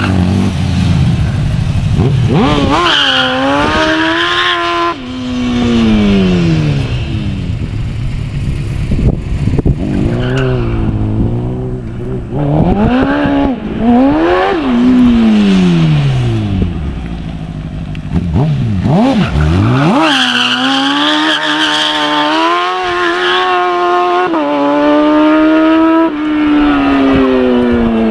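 KTM X-Bow's engine revved hard again and again at a standstill, the pitch sweeping up and dropping away, with tyre squeal during a burnout. Near the end the revs climb in a few steps, then fall away.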